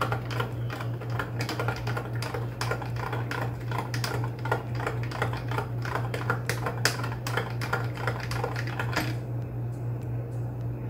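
Metal spoon stirring sugar into a glass of juice, clinking quickly against the glass several times a second, then stopping about a second before the end. A steady low hum runs underneath.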